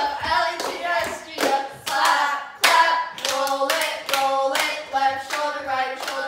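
Several girls chanting a cheer together in a sung, drawn-out way, with sharp hand claps on the beat.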